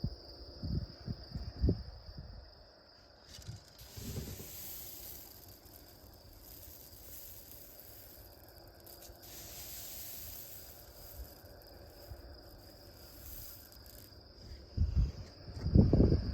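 Insects in a field chirring steadily at one high pitch. A higher hissing buzz joins in about three seconds in and drops away a couple of seconds before the end. Low muffled thumps come near the start and are loudest near the end.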